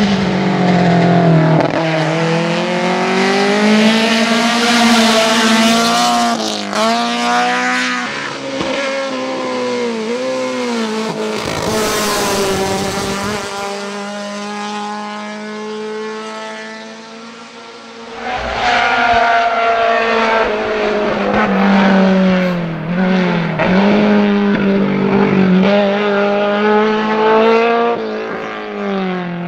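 Opel Ascona 2.0E's four-cylinder engine racing hard, its pitch climbing through each gear and dropping sharply at every shift. It fades for a few seconds in the middle, then comes back loud.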